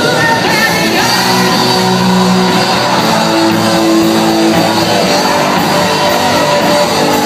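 Live rock band playing loudly with a singer, amplified guitar and drums.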